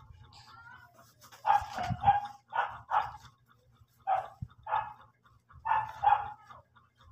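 A dog barking in short runs of two or three barks, about nine barks in all, starting about a second and a half in.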